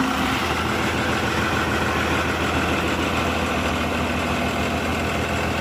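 Six-cylinder Cummins diesel engine in a speedboat, idling steadily.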